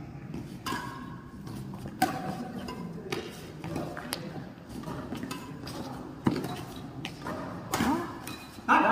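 Badminton rackets striking the shuttlecock in a rally: sharp string pings about a second apart over low crowd chatter. Near the end the spectators break into cheering and applause as the rally ends.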